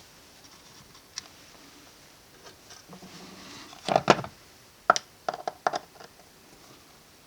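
Clicks and light clatter of a baitcasting reel's metal and plastic parts being handled while it is taken apart. There is a single click about a second in, a short scrape about three seconds in, two sharp knocks around four seconds, and then a quick run of small clicks.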